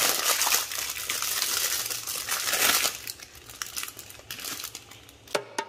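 Foil wrapper crinkling as it is peeled back from a bar of dark chocolate: dense crinkling for about three seconds, then thinning to scattered crackles. A music beat with wood-block-like percussion starts near the end.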